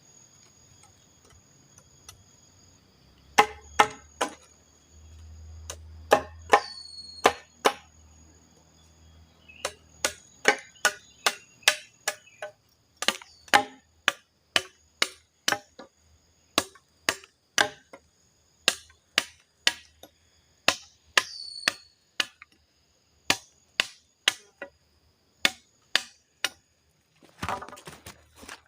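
Wood being chopped by hand, sharp strokes that come irregularly at first and then fall into a steady rhythm of more than one a second. A faint high steady drone and a few brief falling chirps sound behind the strokes.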